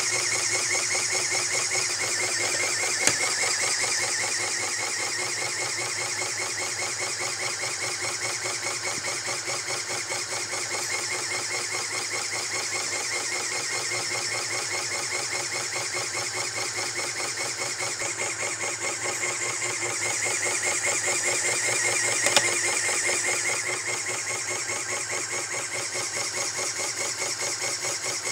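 LEGO pneumatic engine running fast and unloaded with its drive in neutral: a rapid, even clatter of the cylinders and valves with a hiss of air. It swells a little about two-thirds of the way in, with a single click there and another near the start.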